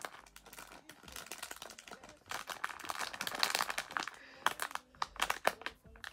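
Plastic bag of tiny chewy sweets crinkling as fingers squeeze and press on it, in sharp crackles that are loudest in the middle.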